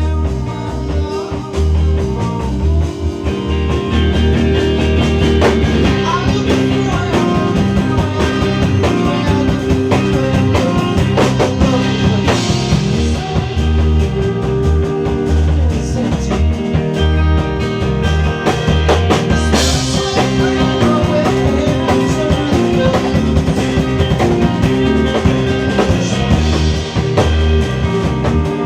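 Live band playing a song: drum kit and guitar over a heavy, shifting bass line.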